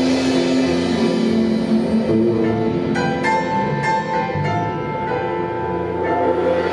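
A small band playing live: grand piano over electric bass and drum kit, with a run of struck piano notes about three seconds in.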